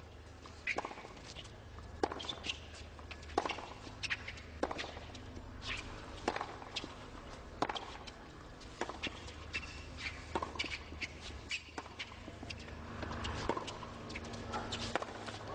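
Tennis ball being struck by racquets and bouncing on a hard court during a long rally: sharp pops every half second to a second over a low stadium murmur. Crowd noise swells near the end.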